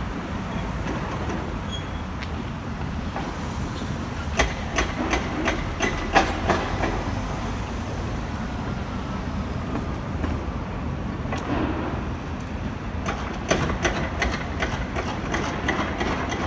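Footsteps on concrete paving slabs: two runs of sharp, even clicks about three a second, over a steady low background rumble.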